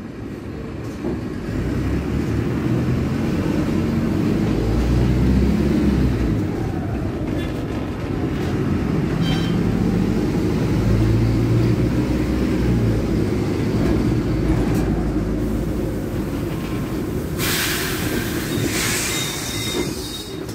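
Mercedes-Benz OH1621L city bus's rear-mounted four-cylinder OM-924 LA diesel with an open exhaust, heard inside the cabin, running under load and swelling as it pulls twice through the gears of its Allison automatic. A loud burst of air hiss comes near the end.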